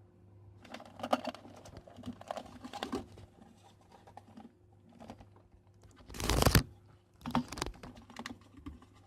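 Cables being handled and pushed into a cardboard Pringles-type can mounted on a desk: irregular clicks, rattles and rustling, with one louder rush of noise about six seconds in.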